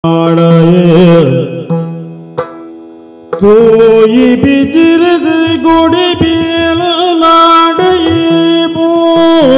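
Yakshagana music: a singer's wavering melodic line over a steady drone, with hand-drum strokes. The music fades away about a second in and returns in full, with singing and drumming, about three and a half seconds in.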